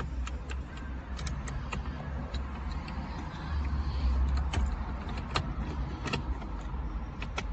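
Scattered light clicks and taps of plastic dashboard trim and screws being handled and fitted in a Jeep Wrangler JL's cabin, over a steady low rumble.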